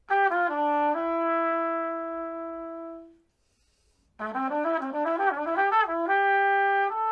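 Trumpet playing a short melody. A few falling notes end in a long held note, then after a pause of about a second comes a quick run of notes that ends on two held notes.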